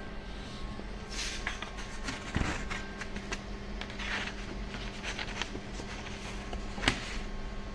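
A steady low machine hum with scattered rustles and clicks over it, and one sharp click near the end.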